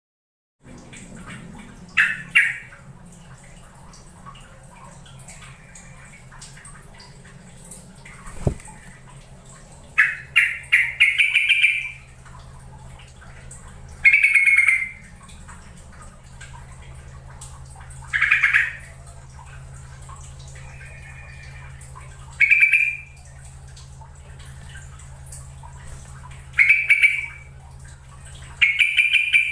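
Trucukan (yellow-vented bulbul) giving short, loud bubbling calls every few seconds, with a quick run of calls about ten seconds in, over a steady low hum.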